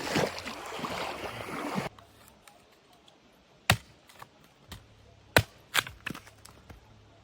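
Rushing river water for about two seconds, then it cuts off to a quiet background broken by a handful of sharp, irregular cracks, two of them loud.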